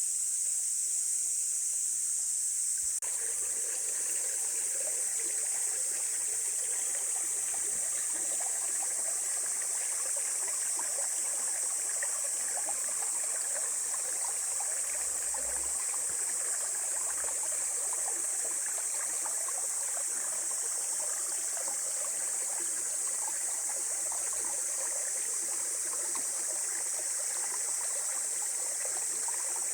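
Mountain stream babbling and trickling, starting abruptly about three seconds in, under a steady high-pitched drone of insects.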